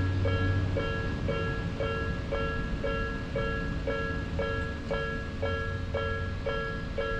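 Electronic warning bell of a Japanese railway level crossing on the Hakone Tozan Railway, ringing evenly at about two dings a second. A low rumble fades under it after the first second.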